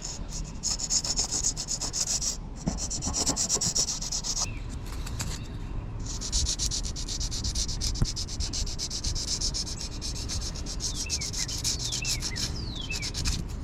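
Sandpaper rubbing rapidly back and forth over a boat's cracked fiberglass gelcoat, roughing the surface so repair putty will stick. It pauses briefly about two and a half seconds in and again around five seconds in.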